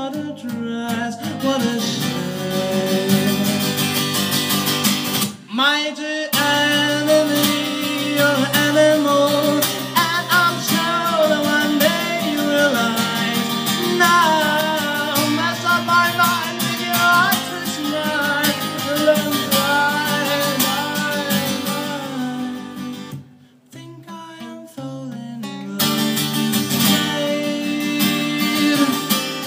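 Live solo performance on a strummed acoustic guitar with a man singing into a microphone. The strumming breaks off briefly about five seconds in, then drops out again for a couple of seconds about three-quarters of the way through before starting up again.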